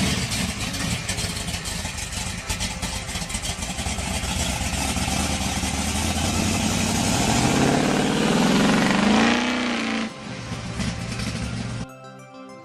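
Big-block V8 of a 1968 Chevrolet Camaro, a 632-cubic-inch crate motor, running. Its pitch rises steadily from about seven seconds in, then falls away sharply about ten seconds in. Music comes in near the end.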